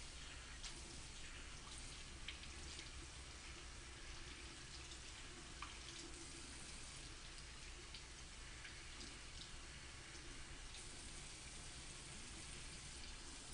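Bathroom faucet running a thin, steady stream into the sink while a makeup brush is rinsed under it with the fingers; faint, with a few light clicks.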